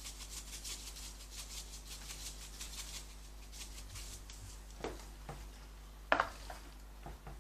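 Lemon pepper seasoning shaken from a shaker in quick, even rattling strokes for about three seconds, followed by a few light knocks and clicks, the loudest about six seconds in.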